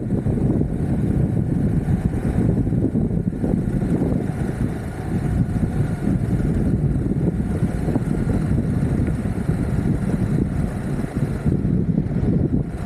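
Steady low rumble of an Exway Atlas Pro 4WD electric skateboard in motion: its wheels rolling on the road, with wind buffeting the microphone.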